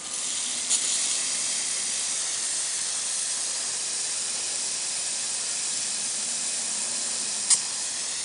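Lawn sprinkler heads spraying water during a zone test run, a steady hiss. There are a couple of sharp clicks, the loudest near the end.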